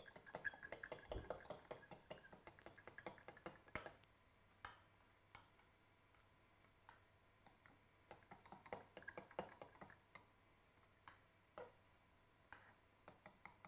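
Faint quick clicking of a metal fork against a glass bowl, whisking flour, fish stock and water into a smooth batter. A dense run of clicks at the start, a few scattered taps, then another run about two-thirds of the way through.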